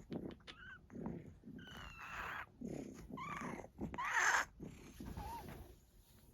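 A pet wheezing: a run of about seven short, raspy breaths, some with squeaky whistling notes. The loudest breath comes about four seconds in, and the last is fainter.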